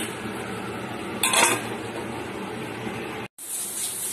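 A pan of curry simmering on a gas stove with a steady hiss, and one short clatter of metal cookware about a second and a half in. Near the end it cuts abruptly to water running in a tiled bathroom.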